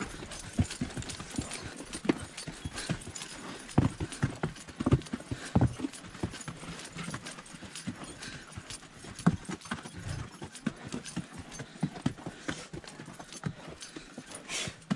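Horse's hooves clip-clopping at a walk on a dry, sandy and rocky dirt trail, in an uneven run of knocks. A short, sharp hissing noise comes near the end.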